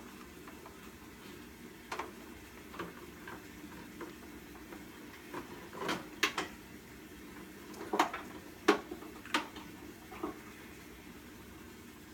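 Scattered clicks and knocks of a small cargo strap's metal hook and buckle against pad eyes and the metal frame of a pressure washer as the strap is threaded through its wheel, about eight in all, the sharpest ones in the second half.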